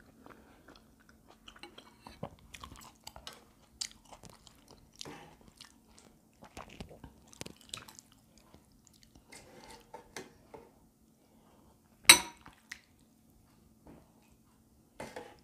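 Close-up eating sounds: chewing and small slurps of fish cake soup, with light clicks of chopsticks, spoon and ladle against the bowl and pot as soup is ladled out. One loud, sharp noise about twelve seconds in.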